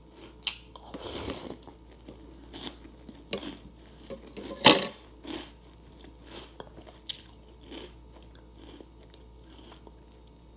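A person biting and chewing crunchy food: irregular crunches and small mouth clicks, the loudest crunch a little under five seconds in.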